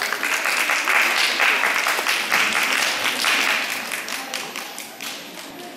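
Audience applauding, a dense patter of many hands mixed with voices, loudest early and dying away toward the end.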